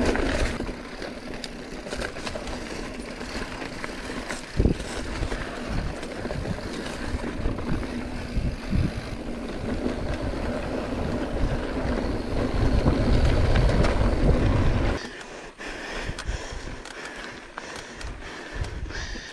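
Mountain bike riding fast on a dirt trail, heard on the rider's camera: wind buffeting the microphone, tyres on loose dirt, and the bike clattering over bumps. The wind rumble drops about fifteen seconds in as the bike slows.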